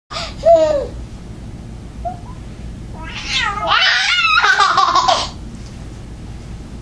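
A pet cat meowing close by, mixed with a toddler's high squeals and laughter. There is a short falling cry about half a second in, and a longer, louder run of wavering calls in the middle.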